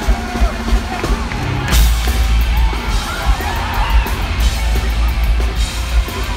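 Punk rock band playing live at high volume, with a heavy pulsing kick drum and bass and a loud cymbal crash about two seconds in, while the crowd yells and whoops over it.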